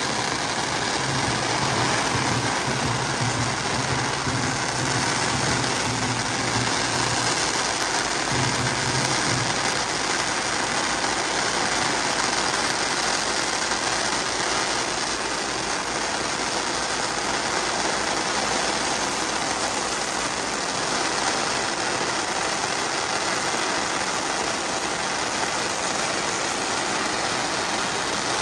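An engine running steadily at idle, under a dense, even background noise; a low hum cuts in and out a few times in the first ten seconds.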